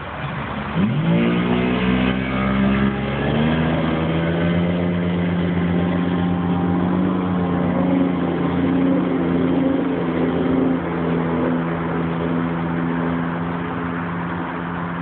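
Motorboat engine revving up about a second in, then running at speed with a steady pitch.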